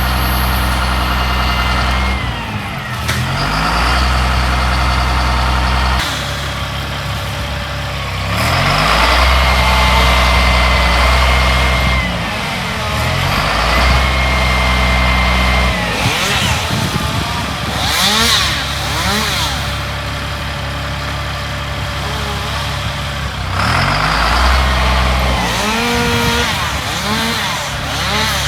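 Tree-removal crew's engine-powered equipment running steadily, with an engine repeatedly revving up and falling back.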